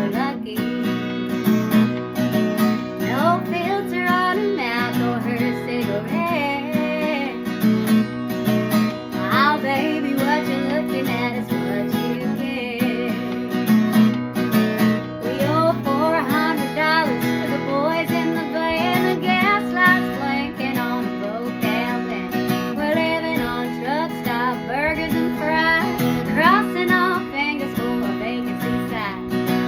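Strummed acoustic guitar playing a country song, with a melody line over it that bends and slides in pitch.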